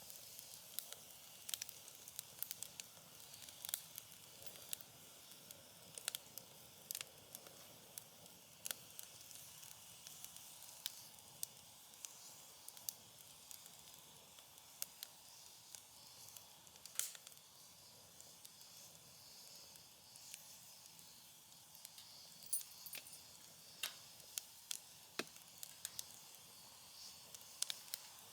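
Wood fire crackling, with irregular sharp pops and snaps, a few of them louder, over a faint steady hiss.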